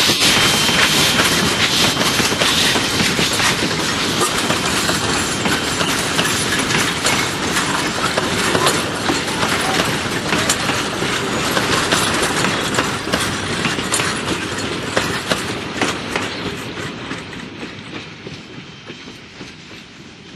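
Steam train running along the track, its wheels clicking over the rail joints in a steady clatter that dies away over the last few seconds.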